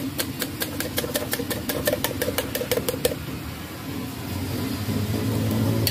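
A spoon clinking rapidly against a metal cup, about five strokes a second, as the egg and scallion filling for martabak telor is beaten, stopping about three seconds in. Under it a steady engine hum grows louder near the end.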